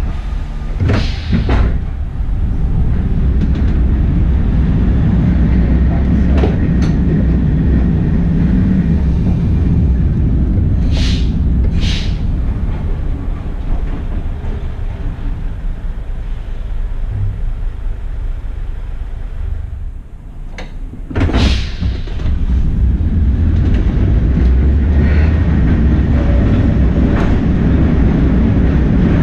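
Electric tram running on street rails, heard from inside the driver's cab: a steady low rumble of motors and wheels on the track, with a few sharp clicks and knocks. It goes quieter for a moment about twenty seconds in, then picks up again after a sharp knock.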